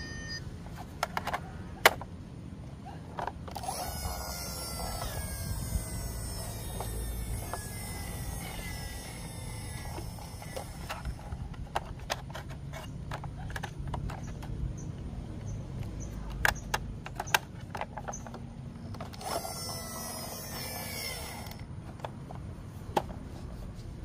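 Sharp plastic clicks and knocks from a toy ambulance and its remote control being handled, the loudest about two seconds in. Two longer stretches of high hissing sound with falling whistly tones run between them.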